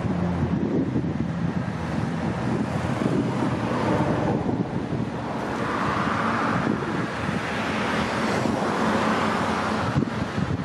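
Strong wind buffeting the microphone over a steady rush of road traffic, with vehicles passing and swelling louder about halfway through and again near the end.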